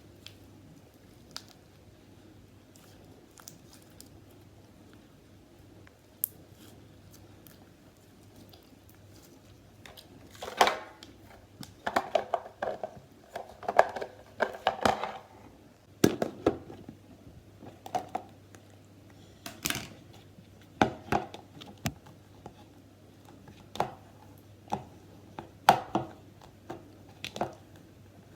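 Slime being handled by hand: irregular small clicks, crackles and squelches, busiest in the middle stretch.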